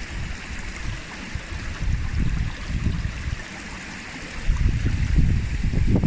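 Wind buffeting the microphone in uneven gusts, over a steady rushing hiss; the gusts grow stronger about two-thirds of the way through.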